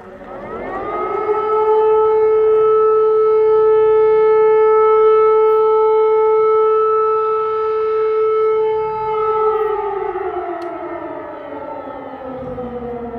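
Civil defence siren sounding: its tone rises over about a second to a steady pitch, holds for some seven seconds, then slowly winds down, starting to rise again near the end.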